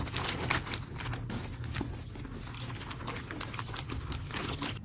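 Plastic bag of flour crinkling and rustling as it is tipped and shaken out into a stainless steel bowl: an irregular run of small crackles.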